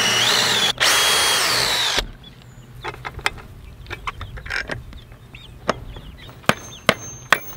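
Electric drill with a 3/8-inch bit boring a hole into a wooden 2x4, its whine rising and falling in pitch, stopping for an instant just under a second in and cutting off about two seconds in. After that come a few sharp clicks and knocks.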